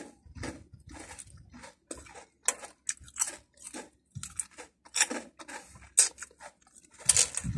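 A person chewing a hard, crunchy potato snack: irregular sharp crunches, several a second, loudest near the end.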